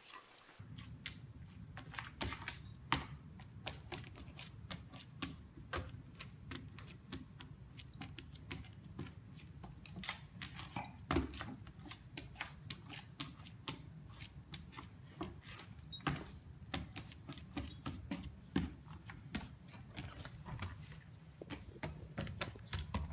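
A puppy's claws clicking and tapping irregularly on a hardwood floor as it scampers and pounces, with light jingling from its collar.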